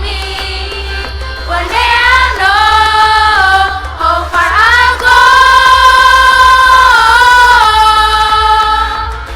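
A choir of young female voices singing a melody in unison, rising into a long held note about five seconds in that fades near the end. A steady low hum runs underneath.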